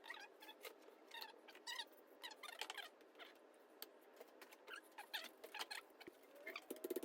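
Faint, irregular clicking and squeaking of hand tools and bolts as bolts are undone on a Nissan KA24DE engine.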